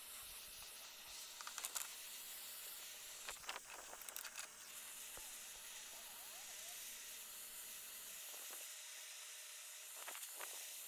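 Hand-held propane torch burning with a steady faint hiss as its flame scorches oak boards, charring the grain. A few light clicks and knocks.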